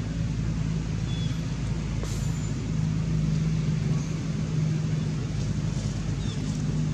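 A steady low engine hum, like a motor running at idle, holds an even pitch throughout. Two faint short high chirps sound over it, about a second in and near the end.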